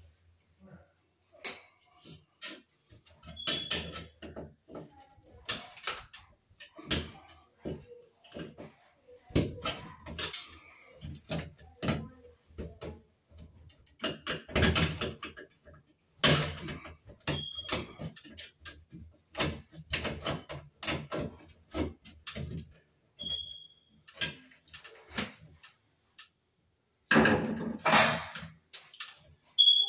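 Irregular clicks, taps and rattles of hands and a screwdriver working the wires and parts of a sheet-metal fluorescent light fixture, with a louder cluster of knocks near the end.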